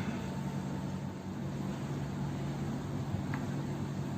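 Steady low hum with an even hiss, and a faint click about three seconds in.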